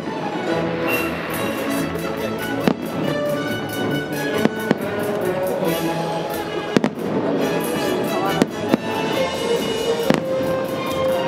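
Fireworks shells bursting with about nine sharp bangs at uneven intervals over continuous show music.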